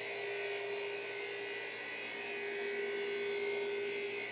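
Electric pool pump motor running: a steady hum with a fainter high whine above it.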